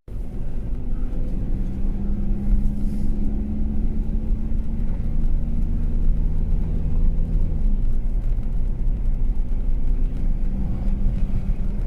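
Van engine running steadily at driving speed, heard from inside the cabin with low road rumble; one strand of the engine drone drops away about eight seconds in.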